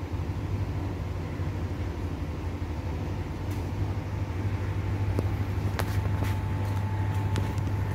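Small electric motor driving the miniature boiler's diesel gear pump, running with a steady low hum. A faint whine joins in about six seconds in.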